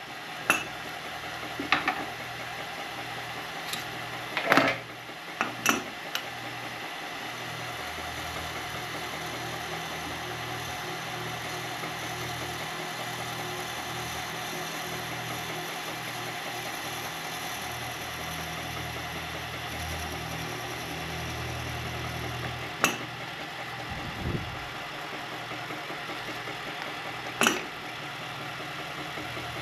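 Milling machine motor running steadily while its end mill cuts a carbon fiber handguard, kept wet to hold down the carbon dust. A handful of short sharp clicks and knocks stand out over the hum, the loudest about four and a half seconds in and near the end.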